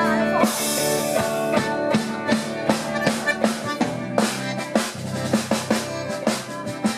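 Live band playing during a sound check: a drum kit with kick and snare keeping a steady beat under sustained pitched instruments, with a cymbal crash about half a second in.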